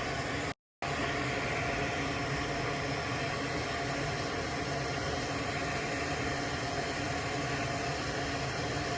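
Steady machine hum and hiss, like a fan running, with a brief total dropout just over half a second in.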